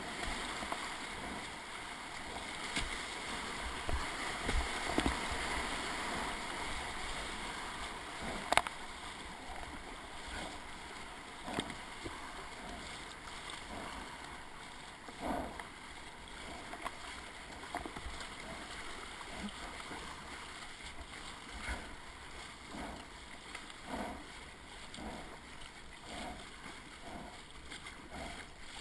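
Whitewater rushing around a kayak as it runs a rapid, easing after the first several seconds, with one sharp knock about eight seconds in. Later the paddle strokes splash in a steady rhythm, about one a second, over the flowing water.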